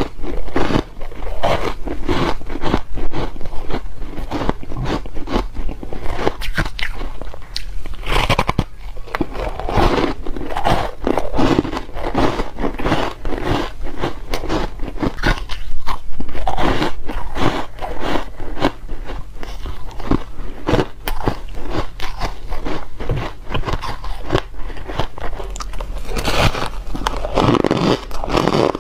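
Crisp, dense crunching as a person bites into and chews blocks of dry, powdery frost-coated ice, one crackling crunch rapidly after another.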